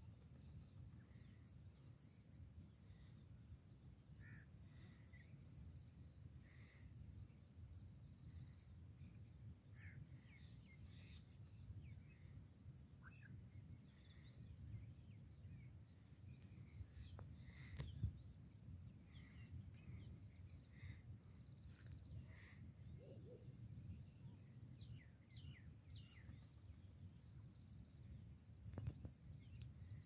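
Faint outdoor ambience: a steady high insect drone over a low rumble, with scattered short, faint bird chirps. A sharp click stands out at about 18 seconds and again near the end.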